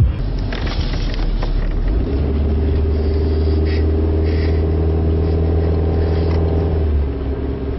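Car engine running at a steady drone, settling into an even hum about two seconds in and easing off near the end.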